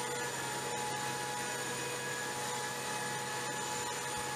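Aircraft jet turbine running steadily: an even rush with a thin, high whine running through it.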